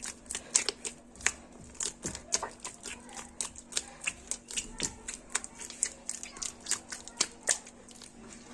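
Hands kneading a soft, wet yeast dough, making quick wet slaps and squelches about two to three times a second.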